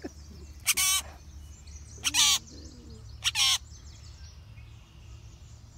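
A bird held in the hand for banding gives three short, harsh calls about a second apart.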